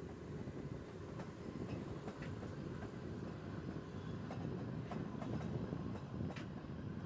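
Narrow-gauge Wengernalpbahn rack-railway train running along the track, heard from inside the carriage: a steady low rumble with sharp clicks of the wheels every second or so.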